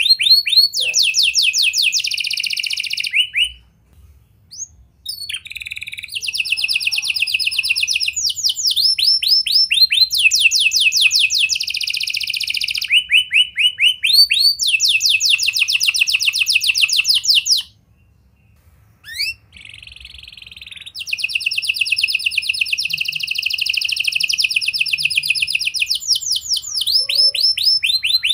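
Domestic canary singing a long, loud song made of fast trills: runs of quickly repeated notes, each run held at one pitch and then switching to a higher or lower one. The song breaks off briefly twice, about four seconds in and again about eighteen seconds in.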